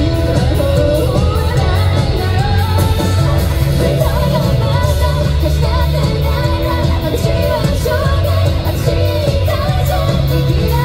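Live J-rock band performance: a female lead vocal sings over electric guitar, bass, drums and keyboards, with a steady drumbeat, heard through the venue's PA from the audience.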